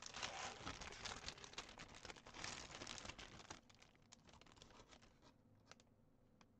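Clear plastic packaging bag crinkling as it is handled and pulled open, fading to a few faint rustles after about three and a half seconds.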